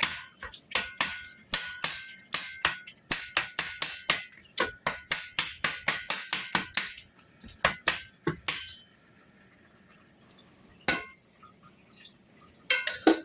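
A utensil knocking rapidly against a bowl while breaking up food, about three or four knocks a second with a faint ring on some strikes, for about eight seconds, then stopping; a single knock and a short cluster of knocks follow near the end.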